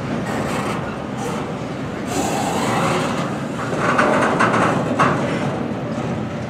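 CSX intermodal freight train's container cars rolling past close by: a steady rumble and clatter of wheels on rail. It grows louder and harsher around four to five seconds in.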